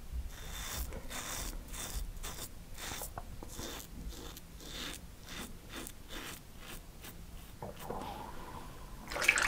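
TATARA Masamune safety razor with a Polsilver blade scraping through lathered stubble in a run of short, quick strokes. Near the end a tap starts running.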